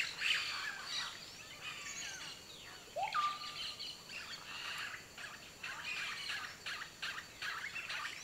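Amazon forest ambience with many short, high chirps and calls. About three seconds in, one louder call rises and then holds a steady note briefly.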